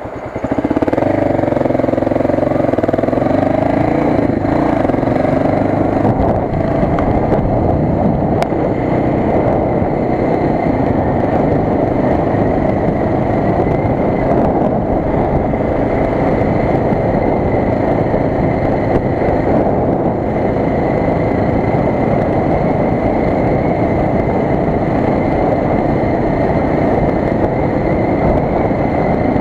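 1986 Suzuki DR 600's single-cylinder four-stroke engine pulling hard as the bike accelerates, its note climbing through the first few seconds. It then runs at a steady cruise under a constant rush of wind and road noise.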